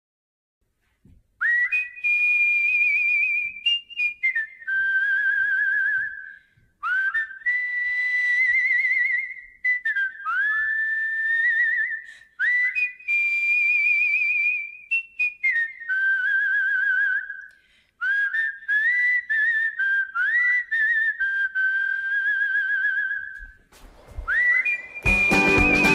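A person whistling a melody solo: held notes with a wavering vibrato, each entered with a short upward slide, phrased with brief pauses. About a second before the end, backing music comes in beneath the whistle.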